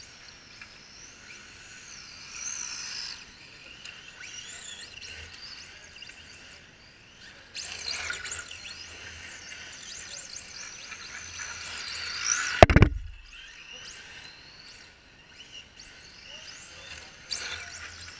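Radio-controlled drift cars running past on a smooth floor, with a high whine that glides up and down in pitch as the throttle changes. There is one loud, sharp knock about twelve and a half seconds in.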